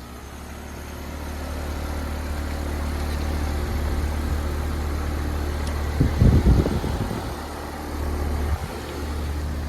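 Heil heat pump kicking on after its time delay and running with a steady low hum that builds over the first couple of seconds. It runs with its high pressure switch bypassed. A brief rumbling burst comes about six seconds in.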